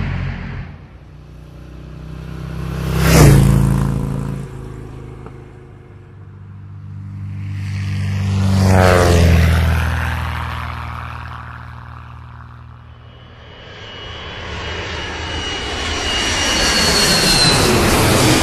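Engine-driven vehicles passing by, one after another, three times: a quick sharp pass about three seconds in, a slower one about nine seconds in whose pitch falls as it goes by, and a third swelling up near the end with high whining tones.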